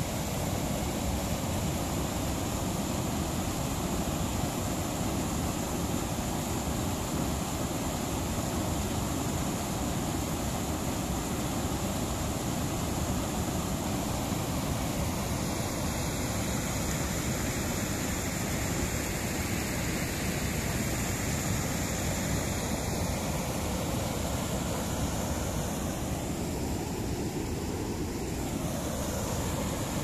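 Muddy floodwater rushing steadily down a stepped concrete spillway and churning into foam below it.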